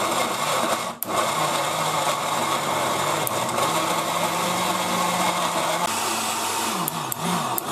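SilverCrest countertop blender running, its blades churning chunks of raw tomato into a purée, with a steady motor hum under the grinding. The sound dips briefly about a second in.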